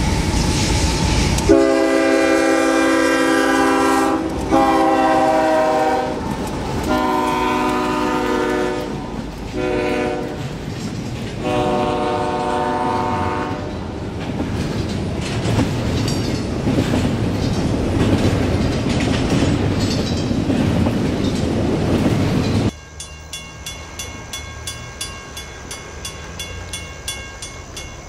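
Horn of a CSX double-stack intermodal train's lead GE CW44AH diesel locomotive sounding several long blasts for a grade crossing, then the locomotives and stack cars rumbling past with wheels clacking over the rail joints. Near the end it turns quieter, with a crossing bell dinging about twice a second.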